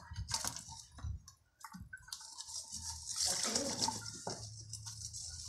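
Water splashing and sloshing in a basin as a live crab is washed and handled in it by hand, after a few light knocks and clatters in the first second or two.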